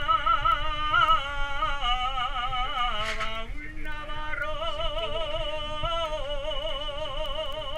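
A man singing long held notes with a heavy, even vibrato, in two phrases with a short break for breath about three and a half seconds in.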